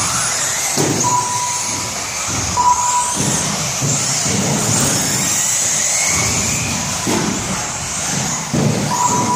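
Electric 4WD RC buggies racing on an indoor carpet track, their motors whining high and rising and falling in pitch as they speed up and slow down, over tyre and chassis rumble and knocks in a reverberant gym. Short beeps at one steady pitch sound a few times.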